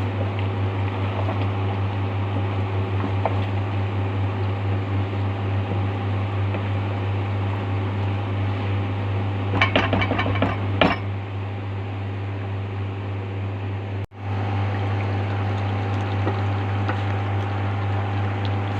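Steady low hum with a quick run of metal clinks about ten seconds in, like a utensil knocking against a cooking pot. The sound cuts out for an instant about fourteen seconds in.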